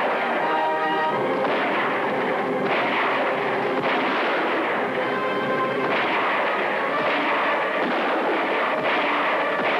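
Repeated rifle and gunshots from a chase shootout, with dramatic background music.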